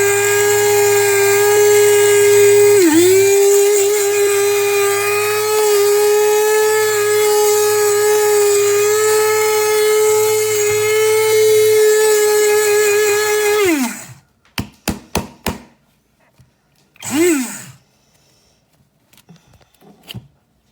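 A 300 W electric blade coffee grinder runs steadily with a high whine, grinding coffee beans. Its pitch dips briefly about three seconds in. About fourteen seconds in it winds down, falling in pitch, and is followed by a quick run of clicks and a short whir that rises and falls.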